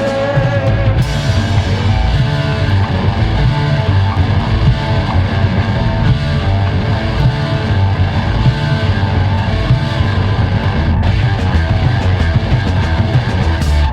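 Rock band playing a recorded song: guitar, bass guitar and drums.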